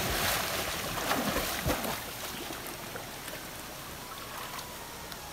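Water sloshing and splashing in surges for about the first two seconds, then a steadier rush of moving water.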